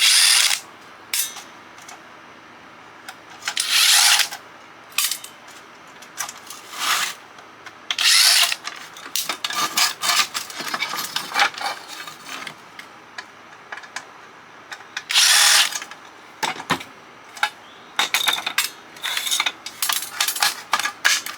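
Screws being driven out of a CB radio's metal chassis: about five short bursts of tool noise, with many clicks and knocks of small metal parts being handled between them.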